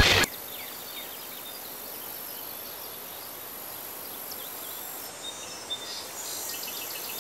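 Outdoor background ambience: a steady hiss of environmental noise with faint bird chirps, more of them in the last couple of seconds. A loud noisy intro sound cuts off a fraction of a second in.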